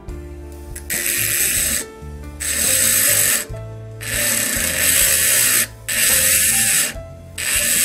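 Handheld rotary grinder with a small grinding bit grinding into the steel tip of a flathead screwdriver. It comes in repeated bursts of one to two seconds as the bit is pressed on and eased off, four times and starting again near the end. Background music plays underneath.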